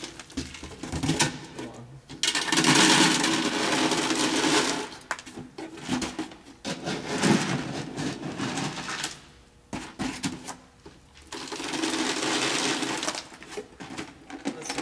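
Dry cat food kibble poured into a carrying container, a rattling rush in two long pours: one about two seconds in lasting nearly three seconds, the other near the end. Scattered clicks and knocks fall between them.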